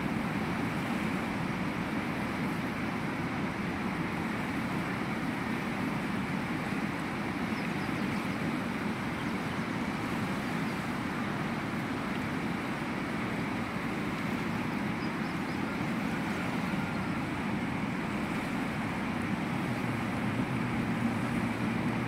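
Steady rushing of a fast, silty mountain river.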